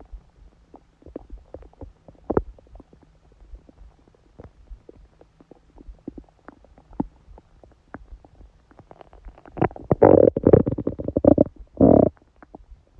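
A woman's stomach growling during menstruation: scattered small gurgles and pops, one louder gurgle a couple of seconds in, then a long, loud run of gurgling near the end.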